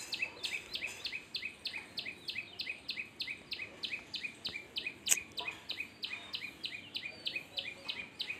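A bird calling steadily, about four times a second, each call a quick falling whistle ending in a short chirp. A single sharp click about five seconds in.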